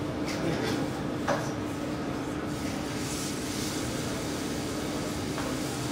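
Steady background noise of a large indoor hall with a faint constant low hum, and a single light knock about a second in.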